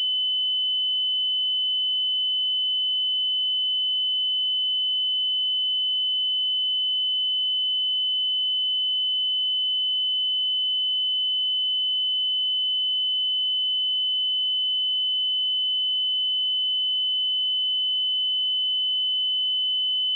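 A steady pure sine-wave test tone at 3022 Hz, one constant high-pitched note at even loudness, used to check speakers and headphones.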